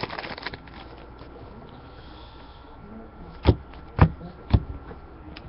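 Three sharp knocks, about half a second apart, a little over halfway through, over a faint steady hiss.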